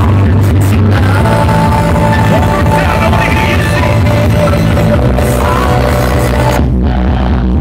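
Loud club music with a heavy bass line, played by the DJ over the nightclub's sound system. Near the end the treble drops out, leaving mostly bass.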